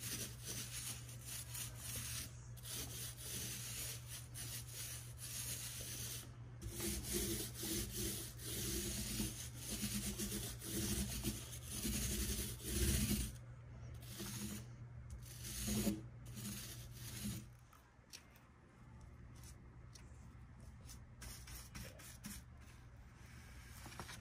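Small paint roller rolling paint onto a cabinet panel in repeated back-and-forth strokes, a sticky rasping rub that swells and fades with each pass. About two-thirds of the way in it gives way to much softer strokes.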